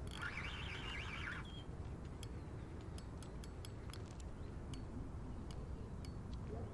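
Spinning reel on a heavily loaded rod while playing a hooked sturgeon: a buzzing burst for about the first second and a half, then scattered sharp clicks, over a low steady rumble.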